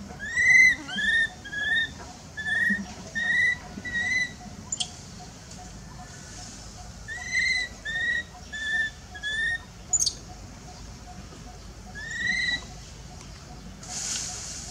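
Baby long-tailed macaque calling: short, high-pitched squeaky cries, each rising and falling, in a quick run of about seven, then about five more after a pause, and one last cry near the end. A couple of sharp clicks fall between the runs.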